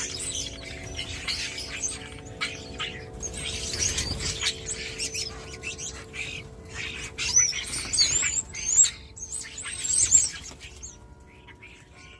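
European starlings chattering and whistling, with squeaky whistles gliding up and down loudest about seven to ten seconds in. Wind chimes ring steadily underneath.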